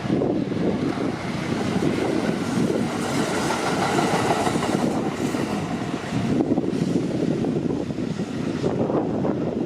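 Kintetsu electric train passing through a level crossing: a steady rumble and clatter of wheels on the rails that fills the whole stretch.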